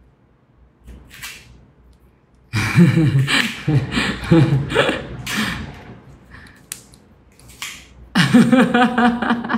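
A woman laughing hard in choppy bursts, starting about two and a half seconds in and again near the end, with sharp breaths drawn between.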